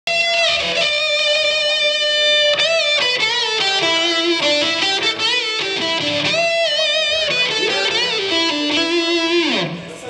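Electric guitar playing a slow single-note lead line, sustained notes with bends and vibrato that step down in pitch, ending in a slide down just before the end.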